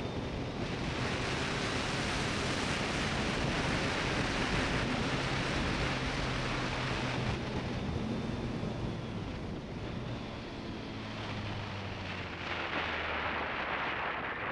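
BMW K1200S inline-four engine running under heavy wind rush on the action camera's microphone. The engine note falls from about eight to eleven seconds in and stays lower as the bike slows for a sharp bend.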